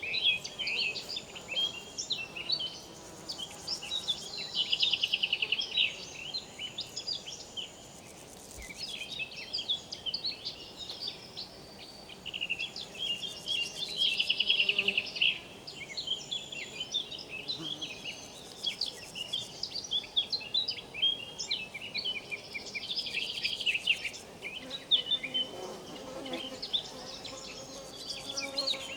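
Dense high-pitched chirping and buzzing of riverside insects, with a louder buzzy trill returning about every nine seconds.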